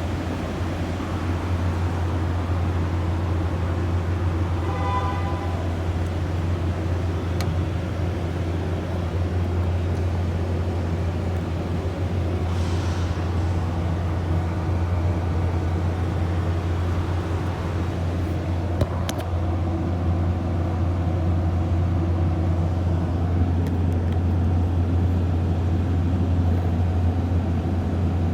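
Steady low mechanical hum of a running motor, with a brief high chirp about five seconds in and a few sharp clicks later on.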